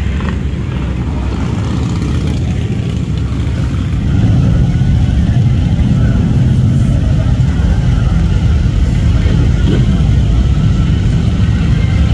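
Motorcycle engines running with a loud, steady low rumble that gets louder about four seconds in.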